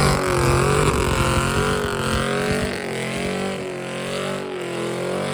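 Pickup truck engine held at high revs, its pitch wavering as the truck spins its wheels in mud, gradually fading.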